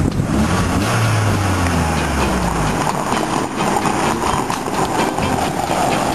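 A car driving on a rough, bumpy dirt road. The engine's note drops over the first couple of seconds, over a constant rumble and rattle of knocks from the rough ground.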